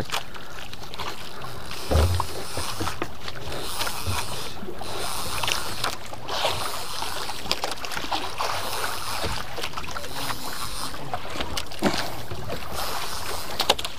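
Steady wind and sea-water noise around a small outrigger fishing boat, rising and falling, with a low thump about two seconds in.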